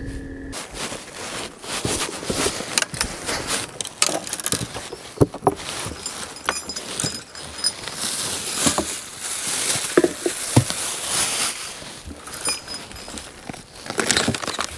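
Close handling noise: rustling, crinkling and irregular clicks and knocks from things being handled right by the microphone. A steady hum cuts off about half a second in.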